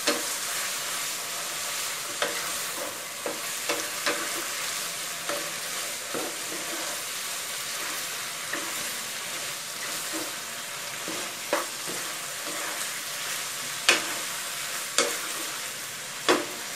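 Fish balls and bamboo shoots sizzling as they are stir-fried in a wok, with the spatula scraping and knocking against the pan every second or two.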